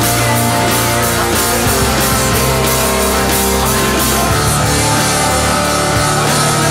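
Loud instrumental passage of a post-hardcore/punk rock band, with electric guitars, bass and drums playing and no vocals. The bass notes change every second or two under steadily struck cymbals.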